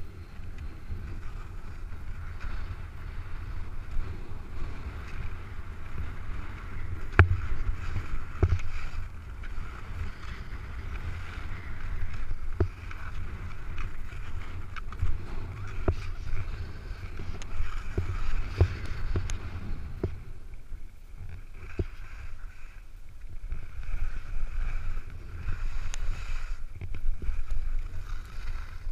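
Wind buffeting the microphone of a helmet camera while skiing downhill, over the hiss and scrape of Head skis on crusty snow. Scattered sharp clicks and knocks come from the skis hitting hard chunks. The sound eases off for a few seconds a little after the middle, then picks up again.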